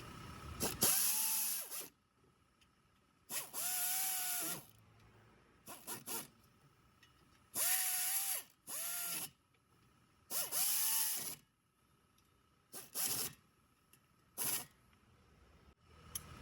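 A handheld power tool's motor spinning up in short bursts, about eight times: each run a whine that rises, holds briefly and falls away, with quiet gaps between.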